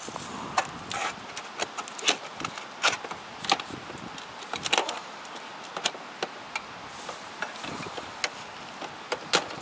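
Metal tube legs and hinges of a folding wood-topped table clicking and clanking as they are swung out and locked into place: a run of sharp knocks, the loudest a little after two seconds in and again near the end.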